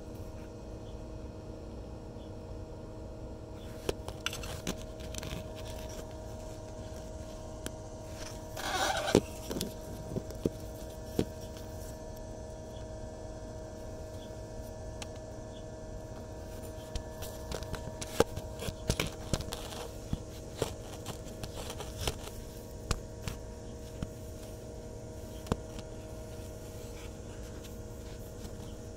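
A steady low hum with a few faint steady tones, under scattered clicks and scrapes from the phone being handled and brushed against the underside of a truck, with a brief squeak about nine seconds in.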